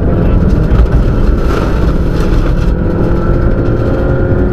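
Inside the cabin of a Subaru rally car at speed: its turbocharged flat-four engine running hard under heavy road and tyre rumble, its pitch climbing slightly in the second half as the car accelerates.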